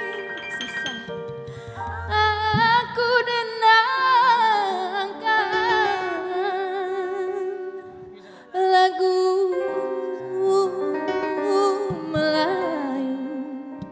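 A woman singing a slow Indonesian ballad with wide vibrato into a microphone, over steady instrumental accompaniment, with a short break about eight seconds in.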